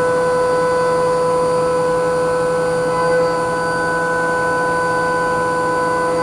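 CNC milling machine's spindle and end mill cutting a part under flood coolant: a steady whine over the hiss of coolant spray and chips.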